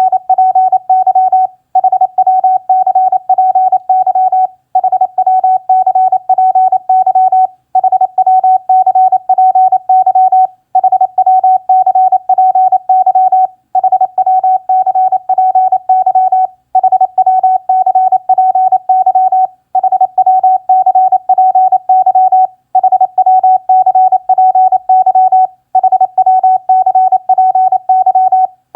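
Morse code (CW) at 28 words per minute: a single steady mid-pitched tone keyed rapidly on and off in dots and dashes, sending common ham radio contact phrases for copying practice. The character groups are separated by a short pause about every three seconds.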